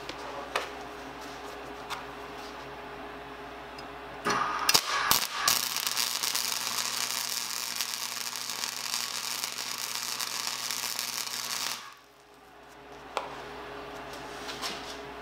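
Wire-feed welder welding the butted ends of a steel wheelbarrow rim: a few sputtering starts about four seconds in, then about six seconds of steady crackling arc that cuts off suddenly.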